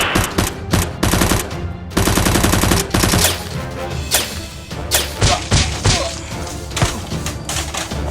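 Bursts of rapid gunfire sound effects over background music, the shots densest in the first few seconds and more scattered afterwards.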